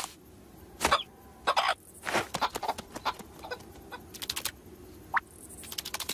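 Cartoon sound effects: a string of short, clucking, squawk-like vocal bursts with runs of rapid clicking in between.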